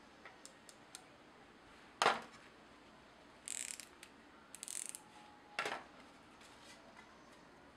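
A snap-off utility knife's slider ratcheting its blade, two short rasping runs of clicks. A sharp click comes first, the loudest sound, and another click follows the ratcheting.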